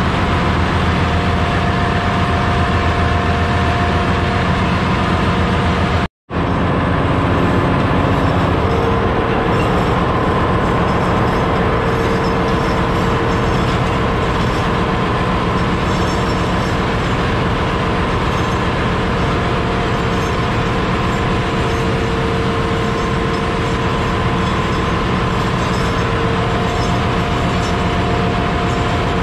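Steady, loud din of a ship's engine room: running diesel machinery with a fast rattling clatter and a constant hum. The sound cuts out for an instant about six seconds in.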